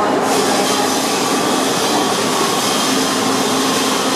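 A CTA Blue Line train of 1981 Budd 2600-series rapid transit cars pulling into an underground station: a steady rush of running noise with a hiss that grows brighter about a third of a second in, as the cars draw close along the platform.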